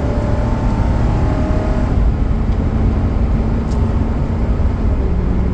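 Steady road and engine noise inside a moving car's cabin at highway speed.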